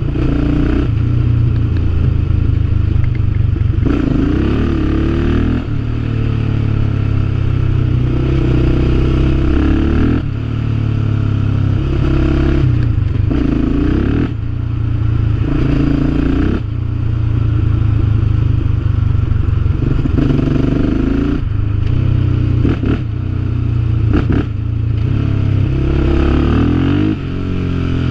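Yamaha Raptor 700R quad's single-cylinder engine and freshly repaired exhaust under way, the pitch climbing in each gear and dropping back at each shift or throttle lift, over and over.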